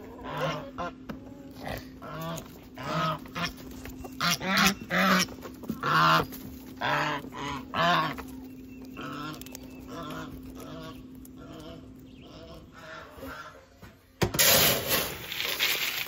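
Domestic goose honking over and over, loud pitched calls, among chickens. About fourteen seconds in, a scoop digs into dry grain feed with a loud rustling rattle.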